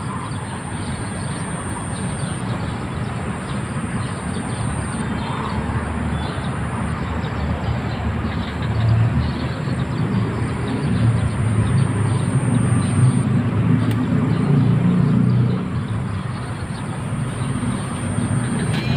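Steady traffic rumble from vehicles on the elevated toll road overhead, the low rumble swelling louder for several seconds in the middle as heavier traffic passes, then easing.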